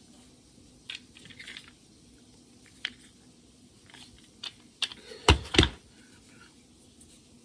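Scattered light clicks and taps, with two loud knocks in quick succession about five seconds in.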